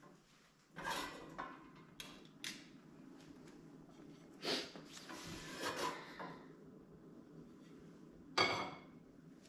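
Kitchen handling sounds: a frying pan moved about on a gas hob and a plate handled, making several separate clatters and knocks, the sharpest near the end.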